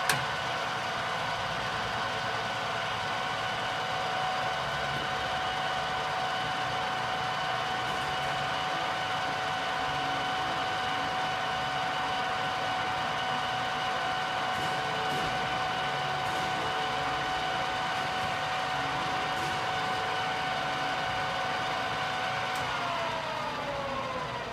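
Ibarmia geared head drill press running under power down feed, a steady machine hum with a high gear whine. Near the end the whine slides down in pitch as the spindle winds down.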